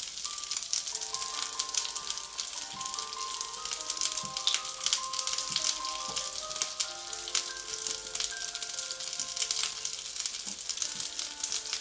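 Halved Brussels sprouts sizzling in hot olive oil and butter on a ridged grill pan, a steady hiss with many small crackles, as more are laid into the pan. Soft background music of held notes plays underneath.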